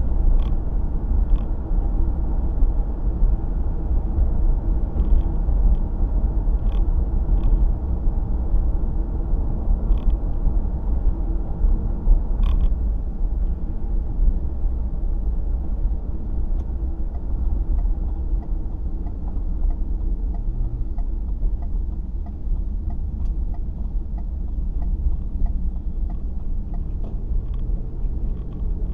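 Steady low rumble of a car driving, road and engine noise heard from inside the cabin. In the second half there is a faint even ticking, about one tick every two-thirds of a second.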